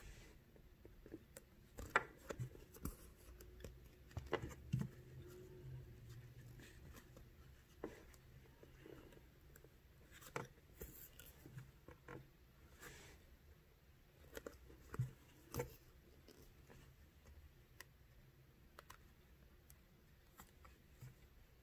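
Faint handling sounds of hand bead embroidery: scattered small clicks and rustles as a needle is worked through the stiff felt backing and thread is drawn through, with a few sharper ticks.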